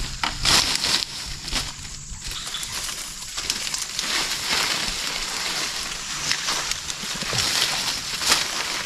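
A thin plastic bag crinkling and rustling as it is handled and fitted over a cut bamboo tip, with irregular louder crackles.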